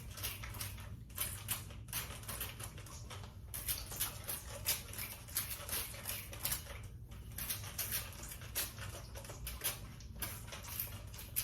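Wig hair being handled and worked through, giving a dense run of irregular crackling, scratchy clicks.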